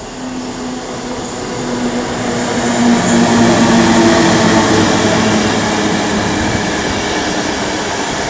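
EP09 electric locomotive and its passenger carriages rolling by at close range as the train comes into the station: steady wheel-on-rail noise with a low hum. It grows to its loudest as the locomotive passes about four seconds in, then eases slightly as the carriages follow.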